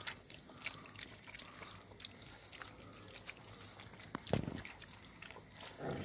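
Stray dogs and puppies eating rice off newspaper: steady wet chewing and lapping clicks, with a brief low grunt from one of the dogs about four seconds in and another near the end.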